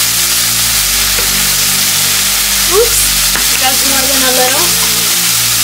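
Cherry tomatoes, onion and carrot frying in a stainless steel skillet, a steady sizzle.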